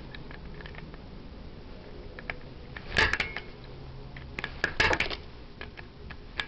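Hands working a small plastic Cat 5 jack with its punched-down wires: light handling noise with a few sharp plastic clicks, one about three seconds in and a quick cluster near five seconds.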